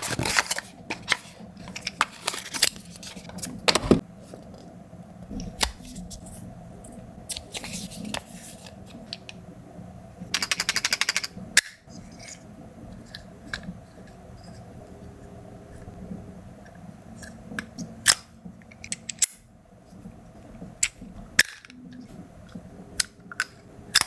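Close handling of a small Wera compact screwdriver and its box: sharp clicks and snaps of hard plastic and metal bits as it is unboxed and its bits are taken from and put back into the handle, with rubbing between. About ten seconds in comes a quick run of rapid, even clicks lasting about a second.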